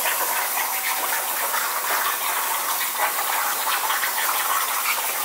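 CNC plasma cutting torch cutting 3 mm metal plate: a steady, crackling hiss from the plasma arc and its air jet.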